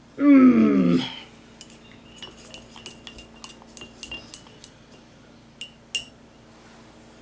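A loud, brief sound falling in pitch in the first second, then a series of light clinks with a short ring, typical of a paintbrush knocking against a glass or ceramic water jar while being rinsed.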